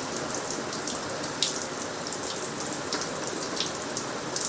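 Shower water running steadily into a bathtub, with scattered small splashes and drips.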